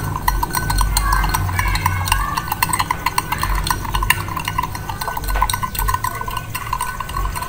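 A metal spoon stirring tea in a drinking glass, clinking against the glass in a fast, even run of small ticks as the sugar is dissolved.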